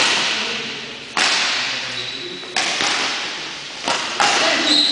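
Badminton racket strikes on a shuttlecock during a rally: sharp hits about every one and a half seconds, each echoing in a large sports hall.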